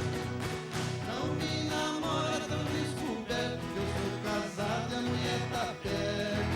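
Music: a song with a steady beat, guitar and singing.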